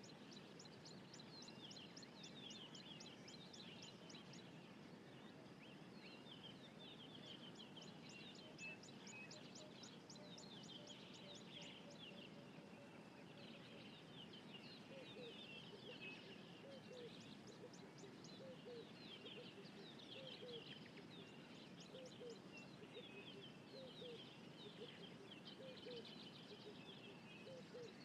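Faint birdsong: several birds chirping and calling, with runs of quick repeated high notes every few seconds.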